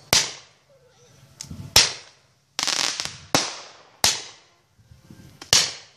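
Consumer fireworks firing in a rapid series: about six sharp bangs, roughly one a second, each trailing off in an echo, with a longer crackling stretch about halfway through.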